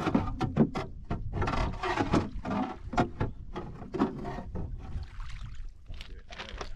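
Irregular knocks, clicks and clatter as a red sea kayak's bow deck fittings are handled, with shingle pebbles shifting underfoot. A low wind rumble sits on the microphone throughout.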